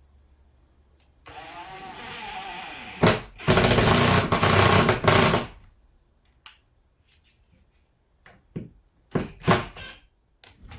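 A handheld power tool runs for about four seconds, its pitch sliding at first, with a sharp knock a little after the start and the loudest stretch after that. Near the end come a handful of short knocks and taps.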